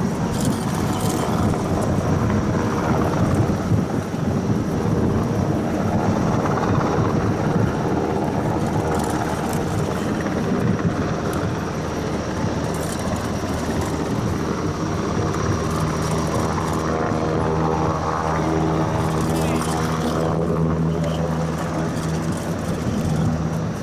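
An engine running steadily: a continuous drone that neither stops nor changes much in loudness.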